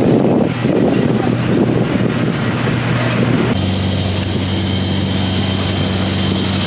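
A vehicle's engine running with a steady drone and road noise, its tone changing abruptly about three and a half seconds in.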